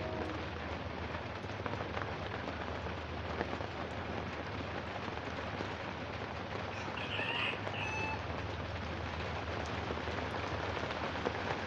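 Steady tropical-storm rain falling, an even hiss, with one short bird call a little past halfway.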